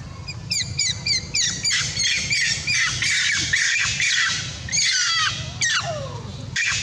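Long-tailed macaque screaming: rapid series of shrill squeals, each falling in pitch, starting about half a second in and growing louder and denser, with a few longer descending wails near the end.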